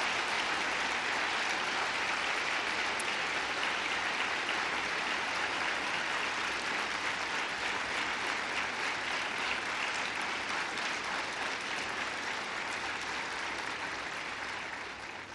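Audience applauding steadily, the clapping thinning and fading away near the end.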